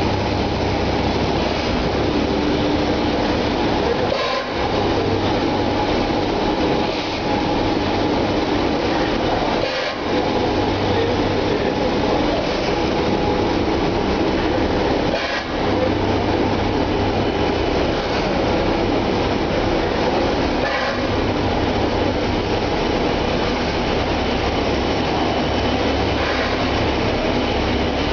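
Egg tray production line machinery running: a loud, steady mechanical din over a low hum, briefly dropping four times, about every five and a half seconds.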